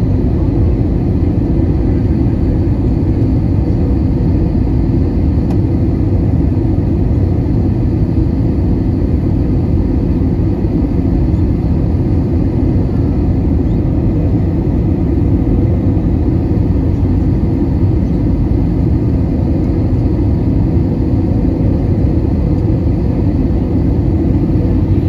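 Airbus A320 cabin noise on approach to landing: jet engine and rushing airflow heard from inside the cabin as an even, deep drone with a faint steady whine above it.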